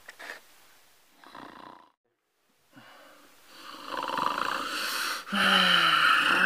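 A man snoring: after a few faint breaths, two long loud snores start about three and a half seconds in, the second with a low droning tone under it.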